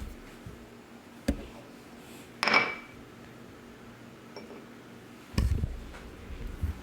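Kitchen dishes being handled: a sharp knock, then a louder clink with a brief ring about two and a half seconds in, and a dull thud a few seconds later.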